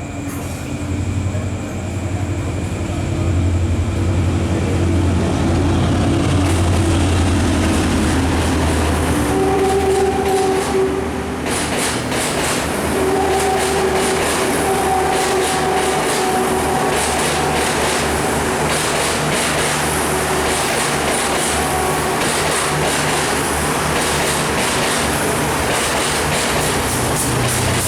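Diesel intercity express train passing at speed. Its engine hums deep and steady as it approaches, the horn sounds twice around ten seconds in, the second blast longer, and then the carriages rattle past with a fast clickety-clack of wheels over rail joints.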